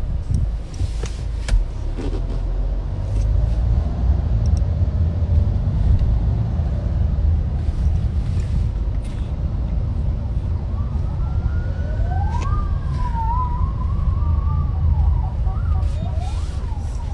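Steady low rumble of a car cabin in traffic. From about ten seconds in, a siren wails up and down, heard from inside the car.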